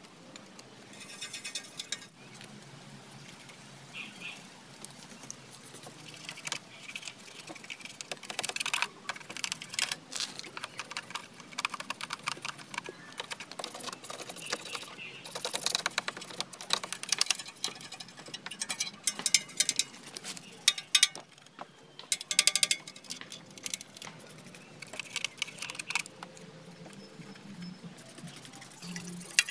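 An old toothbrush scrubbing the wet engine and exhaust of a scooter, with squirts from a trigger spray bottle of soapy water, in irregular scratchy bursts.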